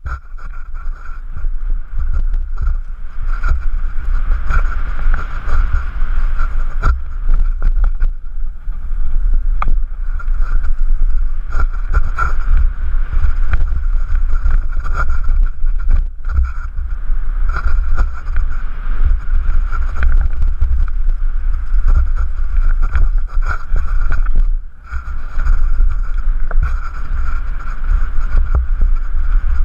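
Wind buffeting a helmet-mounted camera on a mountain bike riding fast down a rocky dirt trail, with many short knocks and rattles from the bike over the bumps. It eases briefly a little before the end.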